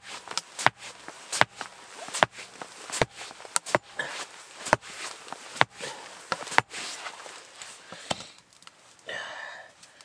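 An axe chopping repeatedly into a tree root in packed dirt: about a dozen sharp, irregular blows, a little under a second apart.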